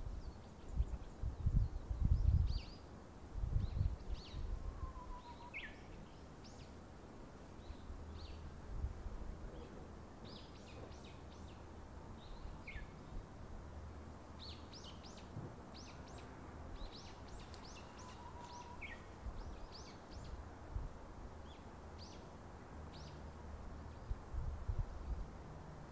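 Small birds chirping with short, quick calls, some falling in pitch, scattered throughout. Gusts of wind buffet the microphone in the first few seconds, and a low steady rumble runs underneath for much of the rest.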